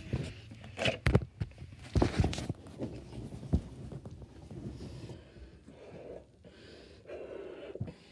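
Knocks and rustles of handling, then from about five seconds in a person blowing breaths into a large balloon to inflate it, with short gaps between the blows.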